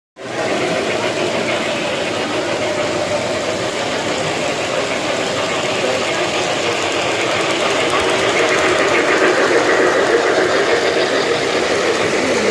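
Three-rail model trains running: a steady mechanical rumble and clatter of wheels on the rails and the locomotives' motors, growing louder around eight to eleven seconds in as a train passes close by.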